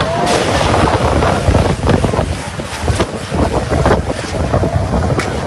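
Storm wind gusting hard and buffeting the microphone, with the rush of heavy rain and a few sharp clatters.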